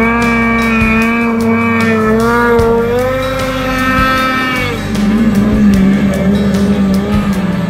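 Snowmobile engine running at high revs as the sled skims across open water, its note wavering and rising slightly, then dropping in pitch about five seconds in as it passes close by and heads away.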